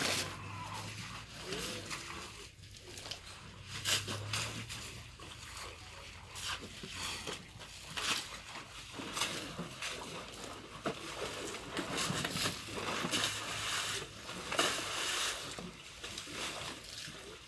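African elephants splashing and sloshing in a shallow muddy waterhole, spraying and throwing mud and water over themselves, with irregular splashes throughout. A low steady hum sits under the splashing for the first few seconds.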